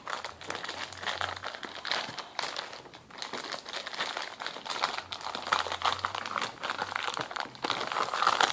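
Toy packaging crinkling and tearing as it is pulled open by hand, in a dense run of irregular crackles with a brief lull about three seconds in.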